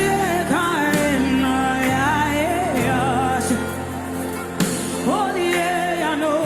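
Worship music: a singing voice holds long, wavering notes over steady sustained chords and bass.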